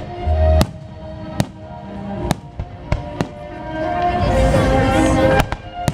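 Fireworks exploding overhead: a string of sharp single bangs about a second apart. Music plays under them and swells near the end.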